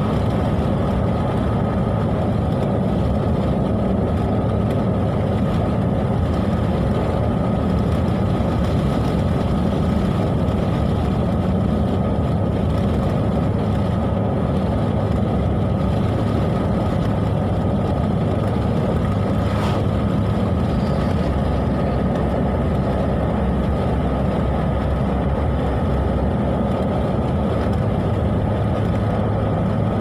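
Steady road and engine noise inside a moving car's cabin, with a thin steady high tone running under it.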